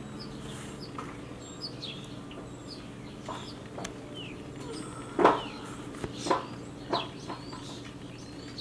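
Songbirds calling in a tree: many short high chirps and quick whistles, with a few louder, harsher calls about five to seven seconds in.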